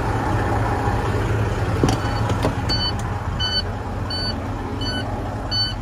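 Idling semi trucks give a steady low rumble. About two seconds in, a truck cab door clicks open and a warning chime starts beeping a little faster than once a second.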